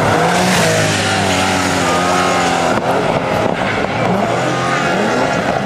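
Porsche 911 rally car's flat-six engine running hard as the car passes close and pulls away. Its note breaks and changes pitch about three seconds in.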